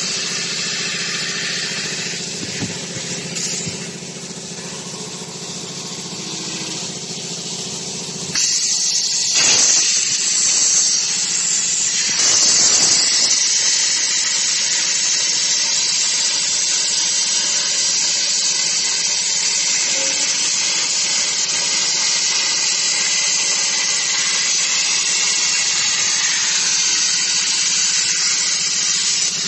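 CNC plasma torch cutting through channel steel: the plasma arc and its air jet give a steady, loud hiss. The hiss steps up in loudness about a third of the way in and then holds steady.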